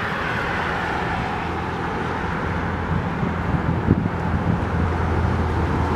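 Road traffic: a steady rush of cars, with a low hum growing louder about halfway through.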